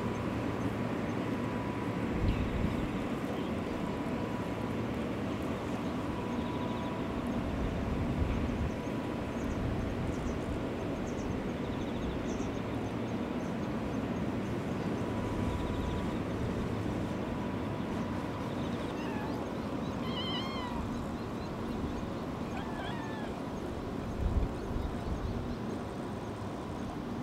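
Kittens meowing: a few short, high, wavering calls about two-thirds of the way through, over a steady low rumble and hiss with a few dull low thumps.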